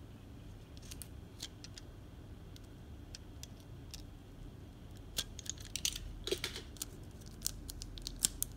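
Small sharp clicks and crinkles of paper and plastic packaging being handled and opened, scattered at first and coming thick and fast from about five seconds in.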